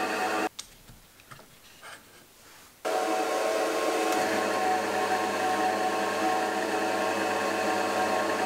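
Pillar drill press motor running steadily. It cuts off abruptly about half a second in, leaving a near-quiet gap with a few faint clicks, and starts up again about three seconds in; a deeper hum joins about a second later.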